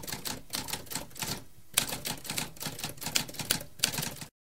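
Typewriter typing: a quick run of key strikes with a brief gap about one and a half seconds in, then a sudden cut-off near the end.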